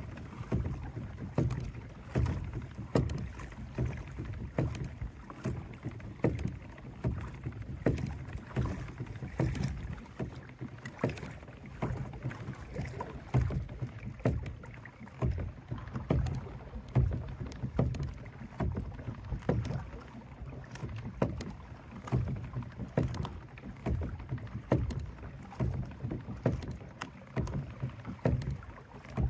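Pedal kayak moving across flat water: water lapping against the hull, with frequent small irregular clicks and knocks over a steady low rumble.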